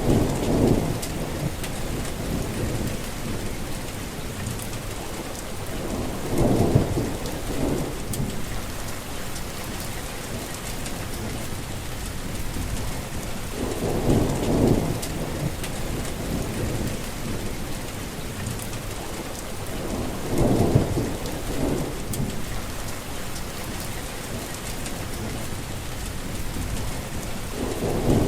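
Heavy rain falling steadily, with low rumbles of thunder swelling up about every seven seconds.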